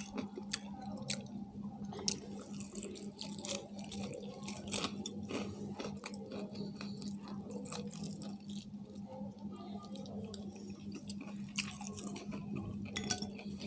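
People chewing and biting fried chicken close to the microphone, with many small sharp clicks and wet mouth sounds, over a steady low hum.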